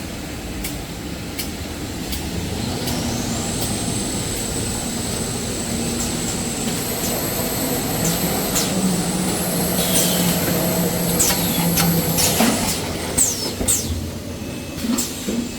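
Toilet paper and kitchen towel production line machinery running with a steady mechanical din. A high whine rises about three seconds in and holds, then stops near the end, among scattered sharp clacks and hisses.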